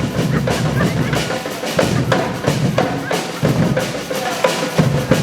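A procession drum band playing a loud, steady beat on bass and snare drums, many drums struck together.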